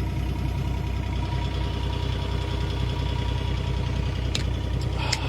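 Vehicle engine running steadily with road noise, heard from inside the cab while driving, with a couple of brief clicks near the end.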